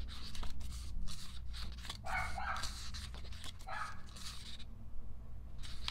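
A dog barking a few times in short bursts, over the light rustle and clicks of paper and album pages being handled.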